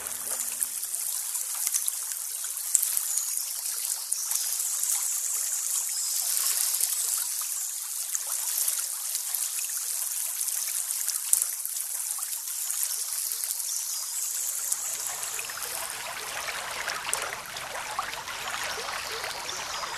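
Shallow spring-fed headwater stream of the Isar running and trickling over moss and stones, heard up close at the water's surface: a steady, hissy rush of water.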